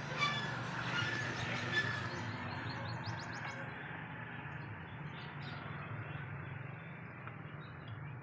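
Outdoor ambience: birds chirping in the first couple of seconds over a steady background hiss and a low hum.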